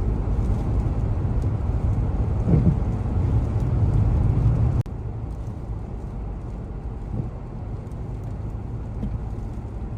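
Low, rumbling outdoor noise, louder in the first half and dropping abruptly about five seconds in.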